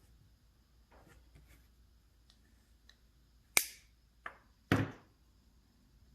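Three sharp knocks of hand tools or parts being worked on, the first and last loud and the middle one fainter, all within about a second, after a few faint clicks.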